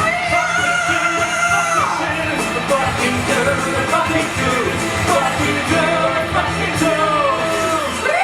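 Live musical theatre singing with long held notes that bend at their ends, over rock-style band accompaniment.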